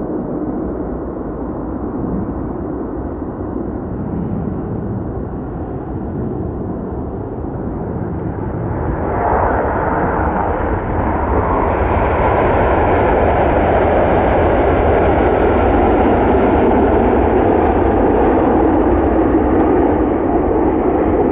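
Turkish Airlines Boeing 777-300's twin jet engines during landing: a steady low rumble through the flare and touchdown. About nine seconds in the engine noise rises sharply, and about twelve seconds in it grows louder and brighter, as the engines spool up to reverse thrust on the landing roll.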